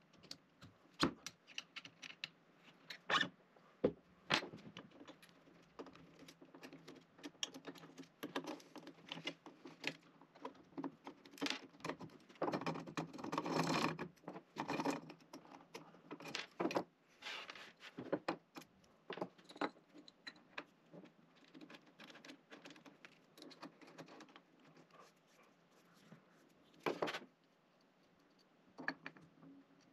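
Scattered clicks, scrapes and light metallic clinks of small hand work: an Allen key, bolts and metal mounting brackets being handled as a trim router and its mount are unscrewed from a CNC machine's Z-axis plate. The rattling is busiest a little before the middle.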